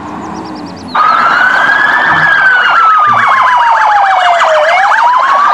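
Police SUV's electronic siren coming on loudly about a second in: a slow wail that climbs, falls and climbs again, with a faster warbling tone running over it.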